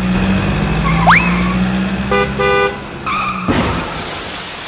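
Cartoon vehicle sound effects: a steady engine hum, a quick rising whistle about a second in, two short horn toots around two seconds in, then a crash-boom about three and a half seconds in as two cartoon vehicles collide.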